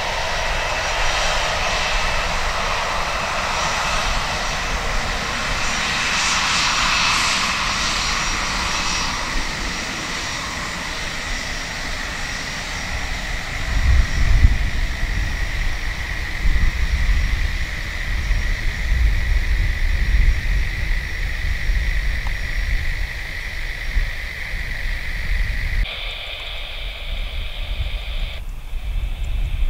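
Airbus A320's CFM56 jet engines at taxi power as the airliner taxis past: a steady whine and hiss with a high held tone, strongest over the first several seconds and fading as it moves away. From about halfway through, a low, uneven rumble takes over.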